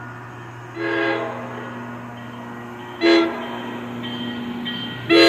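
New Jersey Transit train's horn sounding for a grade crossing as the train approaches: a blast about a second in, a short blast near three seconds, then a louder long blast starting near the end. A steady low engine hum runs underneath.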